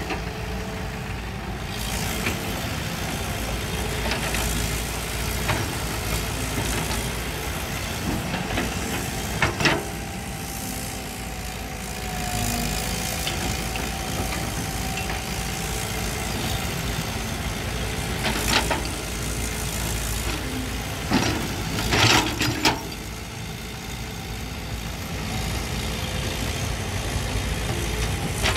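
CAT crawler excavator's diesel engine running steadily as it digs soil and loads a dump truck. A few sharp knocks come through now and then, with a cluster of them about three quarters of the way through.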